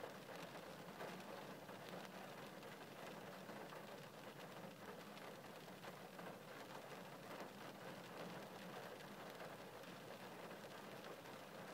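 Rain falling steadily and faintly: a soft hiss dense with small drop taps, over a low steady hum.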